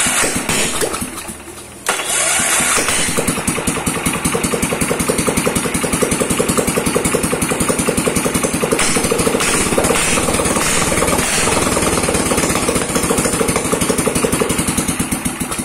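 Mitsubishi GB300 single-cylinder four-stroke petrol engine started on its electric starter with the choke on, catching about two seconds in and then running with an even, rapid firing beat. It has not been tuned yet. The sound falls away near the end.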